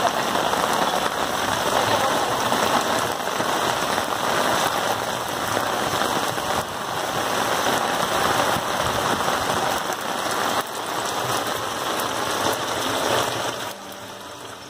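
Rainwater splashing and pattering onto standing water inside a concrete-ring rainwater-harvesting pit around a borewell, a steady rushing sound that drops away near the end.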